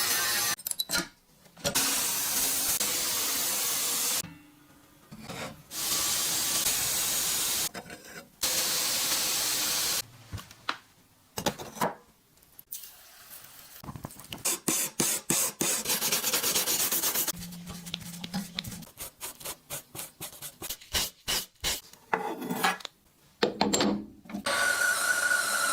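Workshop tool sounds from work on a rusty machete blade, in short edited clips. Several stretches of harsh, steady rasping or grinding noise each stop abruptly. In the middle comes a fast run of even ticks, followed by separate clicks.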